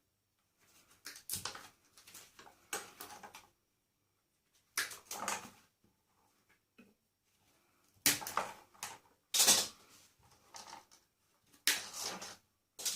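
Irregular bursts of clattering and scraping as the parts of a microwave are pulled apart and handled, with short quiet gaps between them.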